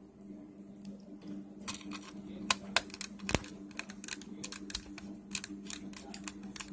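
Irregular small clicks and taps of a precision screwdriver and fingers handling the mini PCIe Wi-Fi card and its antenna wire connectors in the open laptop bay, starting about two seconds in, with one sharper click around the middle.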